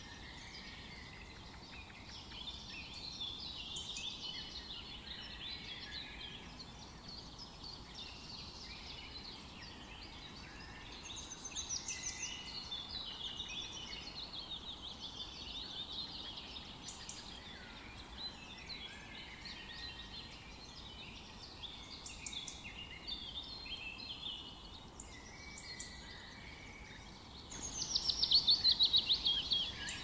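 Several birds chirping and calling at once in a varied chorus of short calls, with a louder, fast run of repeated calls near the end.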